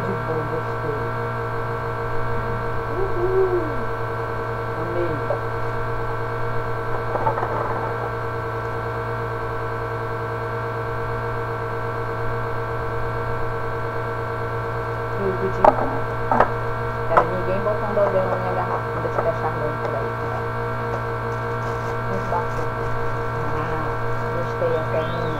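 Electric fan running with a loud, steady hum. A few short clicks and knocks come over it, once at about a third of the way in and several more about two-thirds through.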